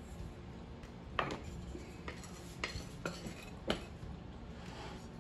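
Spatula scraping and knocking against a glass mixing bowl, about five sharp clinks, as the last of a milk mixture is scraped out into a stainless steel saucepan.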